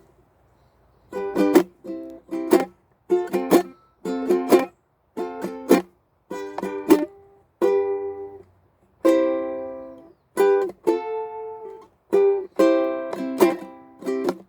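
Ukulele strummed by a beginner, in short halting groups of chords, each stopped dead before a brief silence and the next. A couple of chords, about nine and twelve seconds in, are left to ring out longer.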